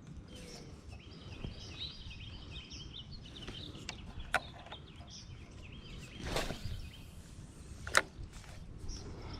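Birds chirping over steady outdoor ambient noise. A brief swish comes about six seconds in, and two sharp clicks come, one near the middle and one near the end.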